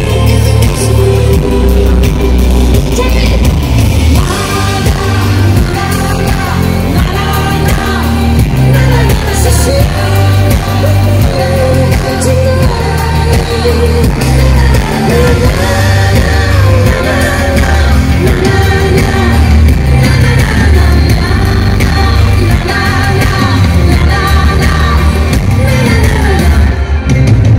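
Live pop music over a large outdoor PA: a woman singing lead into a microphone over a loud, steady bass-heavy beat.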